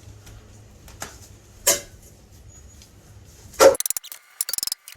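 A few sharp metal knocks and clanks from work on the bolts of an old cast-iron boiler, the loudest about three and a half seconds in, followed by a quick rattling run of clicks.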